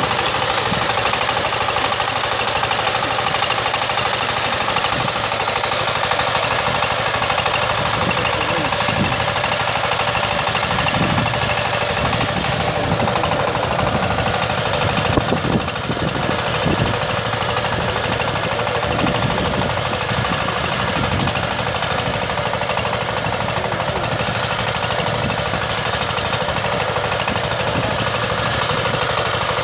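Two-wheel tractor engine running steadily under load while pulling a disc-and-ripper implement through the soil, with no sign of labouring.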